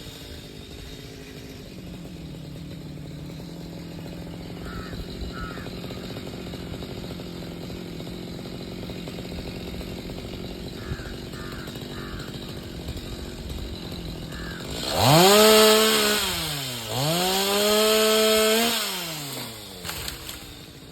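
Two-stroke chainsaw idling, then revved twice near the end, each time rising to a high steady pitch and dropping back to idle.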